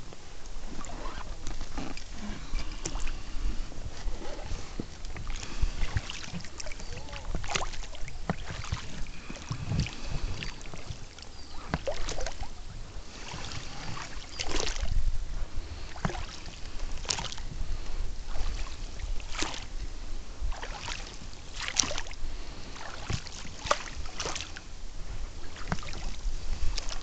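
Small boat being rowed: oars dip and splash with sharp knocks that recur every couple of seconds, over a low steady rumble.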